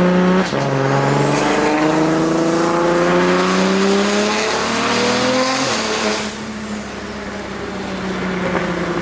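Single-turbo BMW N54 straight-six in a 335is with a loud aftermarket exhaust, pulling hard under boost: the engine note climbs, shifts up about half a second in and climbs again. About six seconds in it lets off with a hiss, then cruises at a steady lower pitch.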